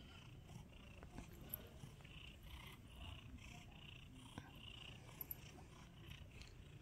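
Domestic cat purring quietly and steadily while having its head stroked.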